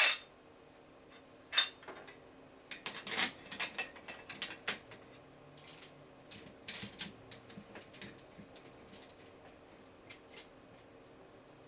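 Small metal hardware being handled and fitted: a sharp knock at the start, then irregular clicks, knocks and rattles, busiest in the middle and trailing off near the end.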